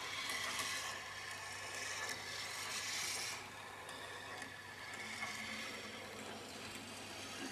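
Marble rolling along the plastic rails of a Quercetti Skyrail marble run, a steady rolling rub that drops a little in level a bit over three seconds in.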